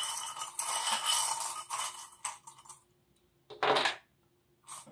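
Small metal divination charms jingling and rattling as a hand stirs them in a ceramic bowl, then stopping; after a short pause come two single clinks, the first about three and a half seconds in and the second near the end.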